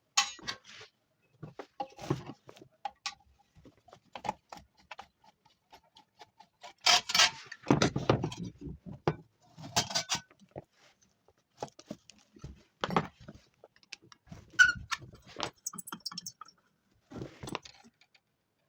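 Irregular clinks, rattles and knocks of small metal parts and tools being handled, with a busier run of clattering about seven to ten seconds in.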